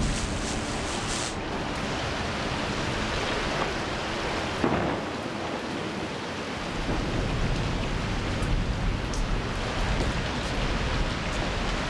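Steady rain-like rushing noise with a low thunder-like rumble that grows stronger after about seven seconds, and a brief sharp crack about five seconds in.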